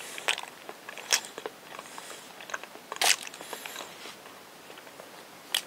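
Close-miked mouth sounds of eating a soft banana: quiet chewing broken by a handful of short, sharp wet smacks.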